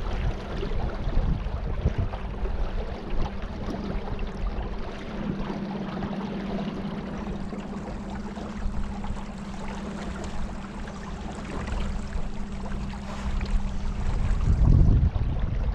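Small boat's motor running at a steady hum as the boat moves across the water, with water rushing against the hull. Wind gusts buffet the microphone at the start and again near the end.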